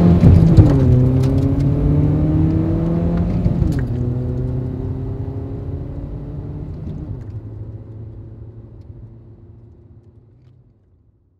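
Car engine accelerating away through the gears: its pitch climbs, drops at each of three upshifts, then climbs again, while the sound fades steadily until it is gone near the end.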